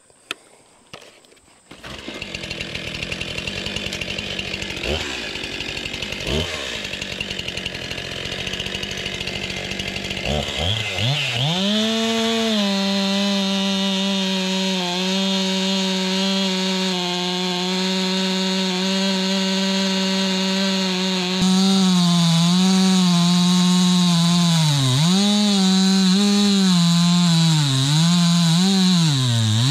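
Stihl two-stroke chainsaw bucking a log at full throttle. Its steady high engine note comes in about ten seconds in after a fainter hiss, then sags and recovers several times near the end as the chain loads up in the cut.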